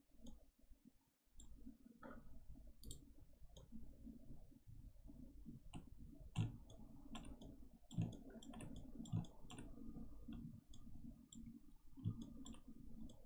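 Irregular clicking of a computer mouse and keyboard in use, scattered quick clicks with a few heavier ones, over a faint low hum.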